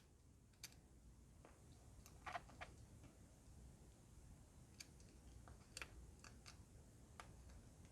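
Near silence with a few faint, scattered clicks and taps from handling small parts.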